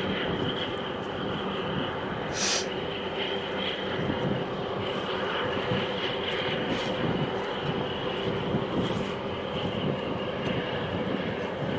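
Steady engine drone from a large container ship and its harbour tug manoeuvring at low speed, with a constant hum under it. A short hiss comes about two and a half seconds in, and a few fainter ones follow later.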